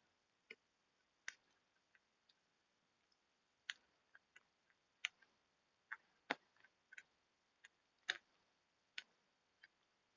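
Scattered single sharp ticks and taps at an irregular pace, roughly one or two a second, against near silence.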